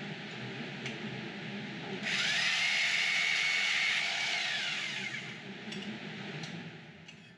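Electric metal-cutting saw running, then cutting through a 304 stainless steel tube. About two seconds in it gets louder, with a high ringing tone that rises and holds for about three seconds while the blade goes through the tube. The sound then eases off and fades toward the end.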